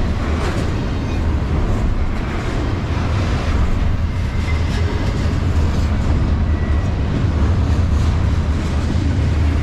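Double-stack intermodal freight train rolling slowly past at restricted speed: a steady low rumble of steel wheels on rail, with occasional faint clicks from the wheels and well cars.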